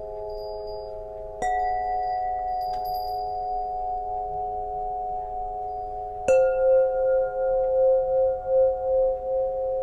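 Solfeggio tuning pipes ringing together in long, overlapping steady tones. One is struck again about a second and a half in, and another louder about six seconds in, after which the sound pulses in a slow wavering beat.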